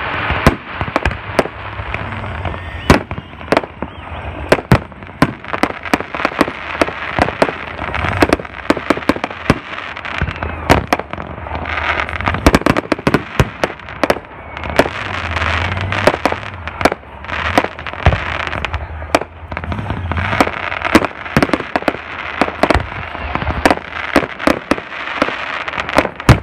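Aerial fireworks bursting overhead in a dense barrage: sharp bangs, several a second at times, over a continuous noisy wash of further bursts and crackle.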